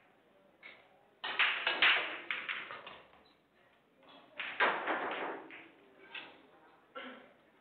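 Billiard balls clacking against one another as they are gathered and pushed together into a rack by hand, in two bursts of quick clicks, with a few single knocks near the end.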